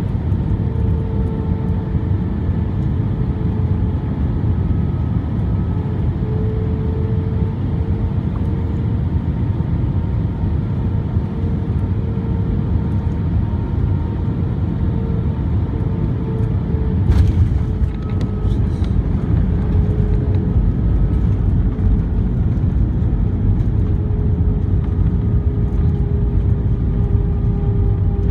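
Airbus A320 cabin noise heard from a window seat over the wing: a steady rumble of engines and airflow with a faint steady engine whine. About 17 seconds in there is a sharp thump with a short rattle as the main gear touches down, then the rumble of the wheels rolling on the runway.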